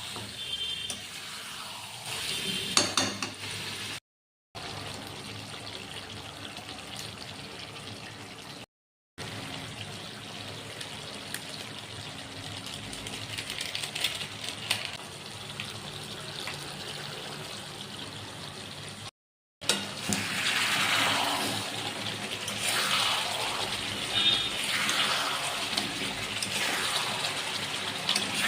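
Water running and splashing in a kitchen while cooking, louder and surging in gushes over the last several seconds. The sound drops out abruptly three times between shots.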